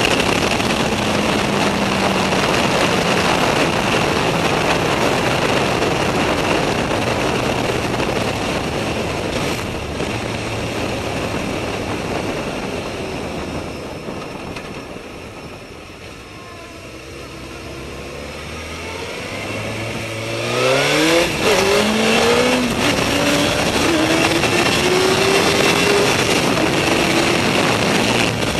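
Suzuki GSX-R 1000 K4's inline-four engine and wind rush heard onboard: at first the revs fall as the bike comes off speed, the sound dropping to a low burble around the middle, then it accelerates hard, revs climbing sharply through several gear changes in a row near the end.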